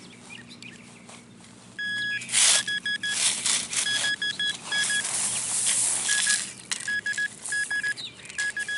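Metal detector beeping over a buried target: a single longer beep about two seconds in, then rapid clusters of short, high beeps, over the noise of dirt being scraped and dug out of the hole.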